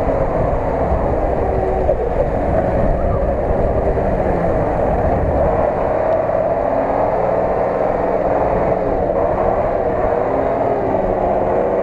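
Engine of a Unimog-based off-road truck running under load as it drives through deep mud, a steady low rumble whose pitch wavers up and down.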